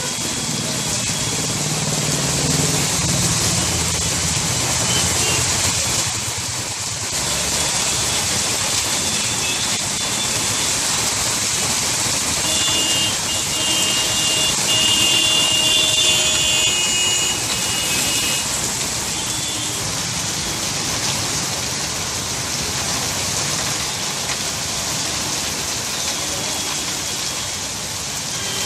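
Heavy rain hissing steadily on a flooded road, with traffic driving through the water: cars, auto-rickshaws and motorcycles running, their engines heaviest in the first few seconds. Brief high-pitched tones sound a few times about halfway through.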